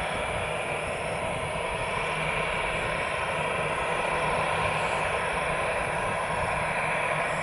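Airbus A320-216's twin CFM56-5B turbofan engines running steadily at low power with an even whine and rush.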